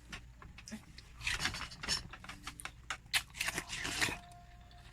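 Watermelon being eaten: a run of short, irregular rasping scrapes and crunches, as of teeth or a spoon working the flesh near the rind. A faint steady tone comes in near the end.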